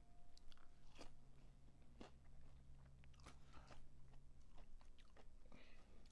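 Close-miked chewing and crunching of fried fast food, with irregular crisp crunches about once a second.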